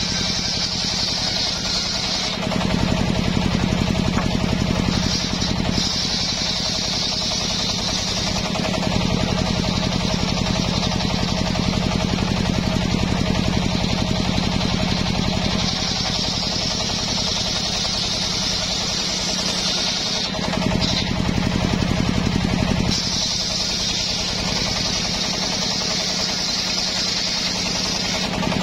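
Homemade table circular saw ripping a teak board lengthwise, its big blade cutting under load throughout. The sound shifts back and forth several times between a high hissing cut and a slightly louder, deeper drone as the board is pushed through.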